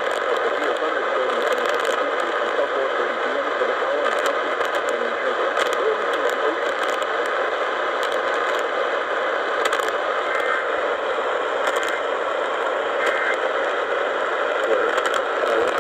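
Steady radio static hiss from a receiver on a weak or empty channel, with scattered faint crackles.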